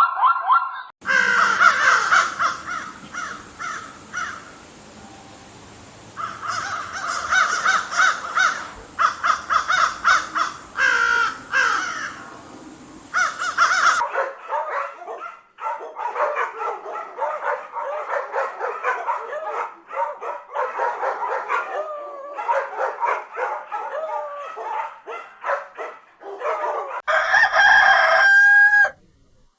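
Animal calls: rapid, repeated pitched calls in three separate recordings cut together, the last with a rising and falling call.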